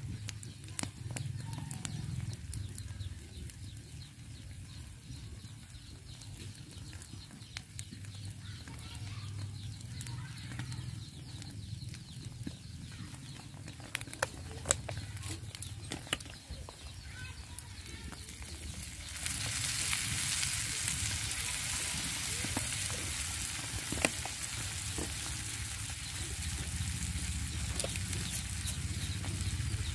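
Eggs sizzling in a frying pan over a wood fire, with occasional sharp pops. The hiss grows louder about two-thirds of the way through.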